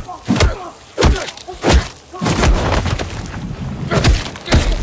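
Heavy punch impacts in a film fight: an armoured, gloved fist hitting a man about six times at uneven intervals, with a rougher scuffle of impacts a little after two seconds in.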